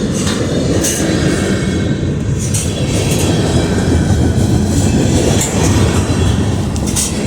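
Norfolk Southern freight train rolling past close by: a steady, loud rumble of wheels on rail, with a sharp click or clank now and then.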